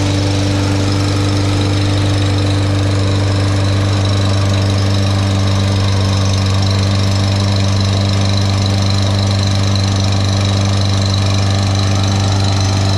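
Briggs & Stratton 625EX Series 150cc engine on a Husqvarna HU625AWD walk-behind lawn mower running at a steady speed, a powerful-sounding, healthy run.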